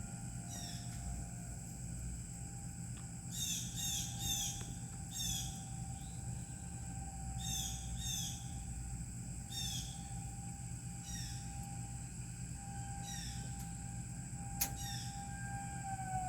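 Tornado warning siren holding a faint steady tone, then starting to wind down with a falling pitch near the end. Over it a bird chirps again and again in short falling notes, often two or three in quick succession, and there is one sharp click near the end.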